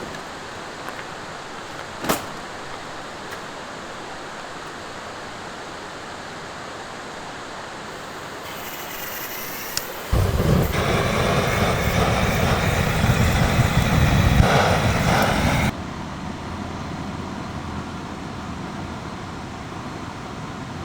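Steady rush of a valley stream with a single sharp click about two seconds in. About ten seconds in, a much louder rushing, rumbling noise starts abruptly and cuts off just as suddenly some five seconds later.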